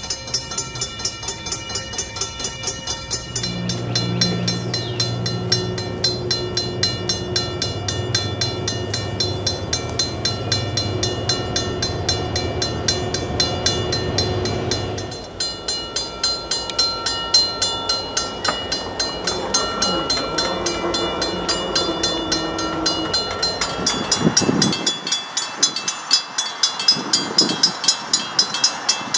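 Safetran electromechanical railroad crossing bells ringing in a rapid, steady clang of repeated hammer strikes. A train passes underneath during the first half. The sound cuts abruptly to another crossing's bell about halfway through, and again near the end.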